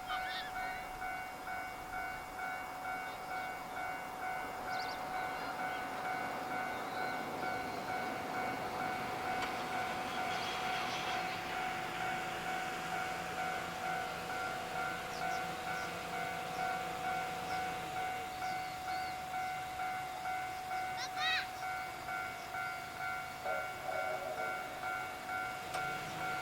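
Japanese railway level-crossing alarm ringing: a steady, evenly repeating electronic ding that warns of an approaching train.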